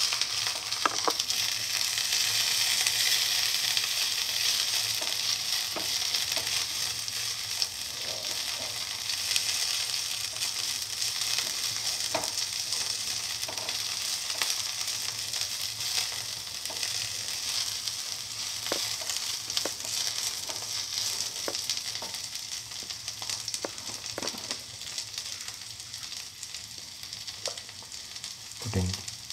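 Onion, garlic, ginger and fenugreek leaves sizzling steadily in hot oil in a non-stick pan as they are sautéed and stirred with a spatula, with a few light knocks of the spatula against the pan.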